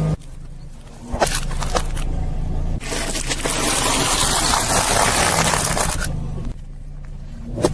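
Car tyre rolling over and crushing objects: a few sharp cracks, then a long stretch of dense crunching and crackling about three seconds in, over a low steady rumble.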